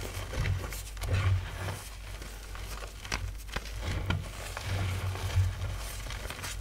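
Soft powdery chalk blocks being crushed and crumbled by hand, giving irregular crunches and crackles, with a few sharper snaps around the middle. Low, muffled thumps come and go underneath.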